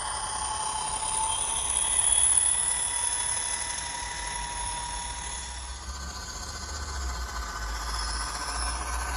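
Recorded Class 57 diesel locomotive engine sound played by a model's ESU LokSound decoder through small speakers: steady running with a high whine over a low engine hum, the hum growing louder about six seconds in.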